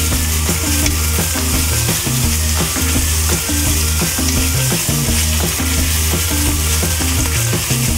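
Thin-sliced pork and eggplant sizzling steadily in a hot frying pan as they are moved around with chopsticks. Background music with steady low bass notes runs underneath.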